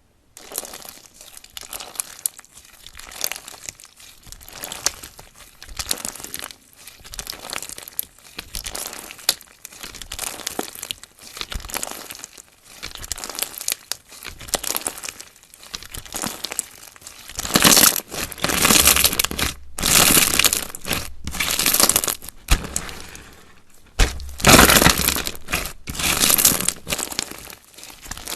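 Slime being squished and pressed by hand in a run of short strokes, louder and fuller for the last ten seconds or so.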